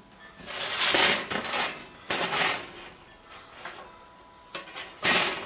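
A flat metal sheet and cook-kit pieces handled on a metal mesh table: a few bursts of scraping and sliding metal, with a sharp clink near the end.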